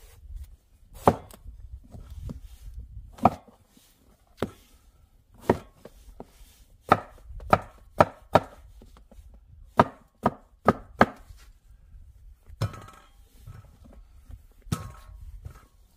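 A knife chopping on a cutting board: about a dozen sharp, separate chops at uneven intervals, some in quick runs.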